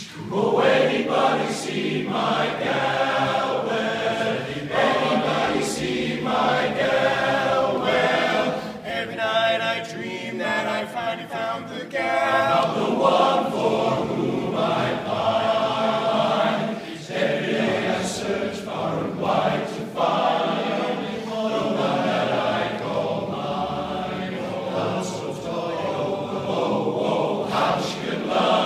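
Male voice choir singing a song together in harmony.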